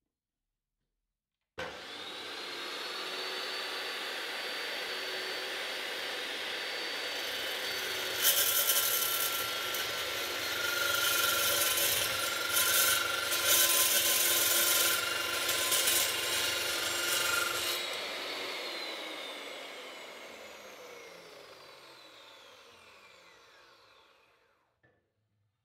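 Makita LC1230 cold cut metal chop saw starting up with a steady whine, then its blade cutting through 5 mm thick mild steel angle section for about ten seconds, with a louder, harsher sound during the cut. After the cut the motor is switched off and winds down, falling in pitch over several seconds.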